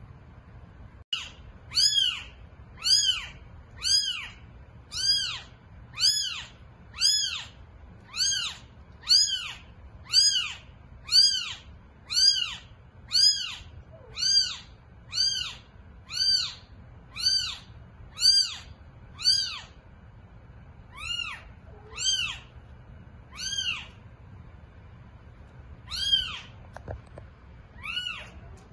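Newborn kitten mewing repeatedly in high, thin calls, about one a second, each rising then falling in pitch; the calls thin out near the end. It is a newborn's calling while apart from its mother.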